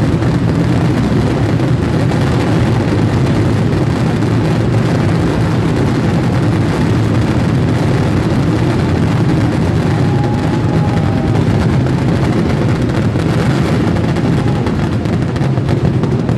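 A massive fireworks barrage, with shells and firecrackers going off so fast that the explosions merge into one continuous rumble at a steady, loud level.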